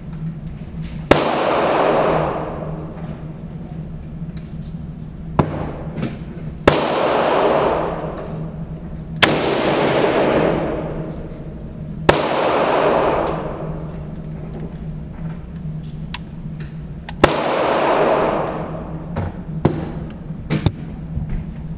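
Gunshots at an indoor shooting range: about six loud single shots at irregular intervals, each ringing on in a long echo off the range walls, then a few fainter pops near the end. A steady low hum sits underneath.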